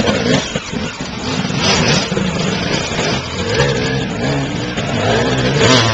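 Enduro motorcycle engines revving up and down in repeated bursts as the riders work their bikes over a log section.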